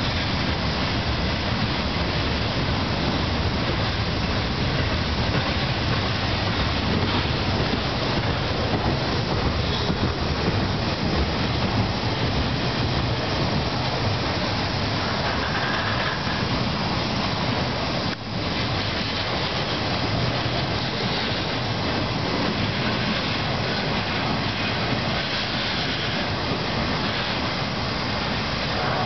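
Intermodal freight train's well cars rolling past on the rails: a steady, continuous noise of steel wheels on track.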